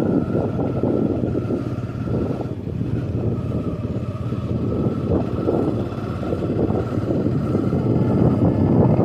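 Heavy construction machinery running steadily: a dense engine rumble with a steady high whine above it.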